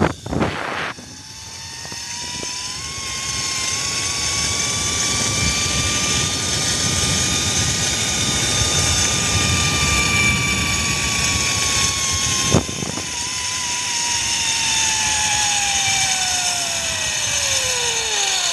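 Zip-line trolley pulleys whining along a steel cable, with wind rushing over the microphone. The whine rises in pitch as the rider picks up speed, then falls steadily over the last few seconds as the trolley slows toward the landing platform. A single sharp click comes about twelve seconds in.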